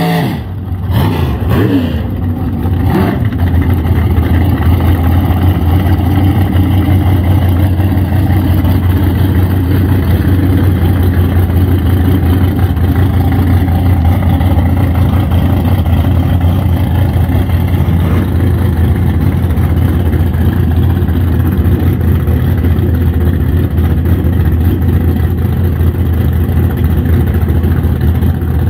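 An engine running steadily at one low pitch, after its pitch falls away in the first few seconds.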